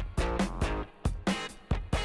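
Background music with a steady beat: plucked guitar notes over a drum-machine rhythm.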